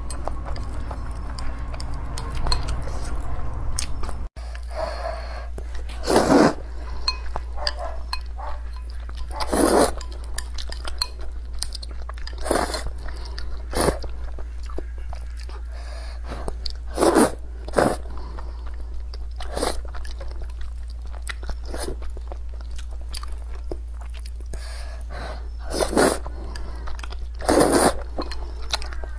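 A person eating sweet potato vermicelli noodles up close: chewing, with short louder mouthful sounds every few seconds. A steady low hum runs underneath.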